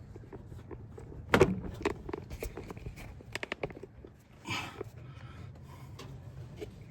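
Hand tools and parts being handled: a sharp knock about a second and a half in, scattered clicks, a quick run of light ticks around three and a half seconds, and a brief scrubbing rustle a second later, over a steady low hum.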